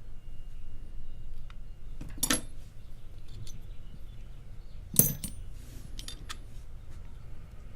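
Small metal clinks of padlock parts being handled while the lock is taken apart: two sharp clinks about two and five seconds in, the second the loudest, with a few fainter ticks between and after.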